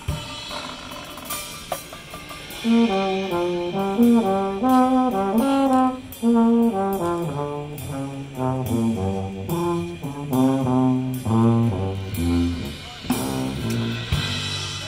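High school marching band's brass section playing a fast line of short, rapidly changing chord notes. It comes in loud about two and a half seconds in and drops back near the end, with percussion ticking steadily behind.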